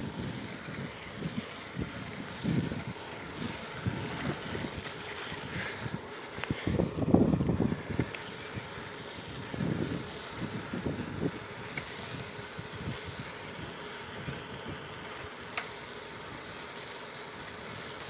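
Riding noise picked up by a camera on a moving bicycle: a steady rush of tyres on asphalt with irregular low wind buffeting on the microphone, the strongest gust about seven seconds in.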